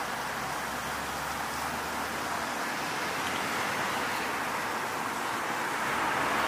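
Steady road traffic noise from passing cars, a constant hiss of tyres and engines that swells slightly near the end.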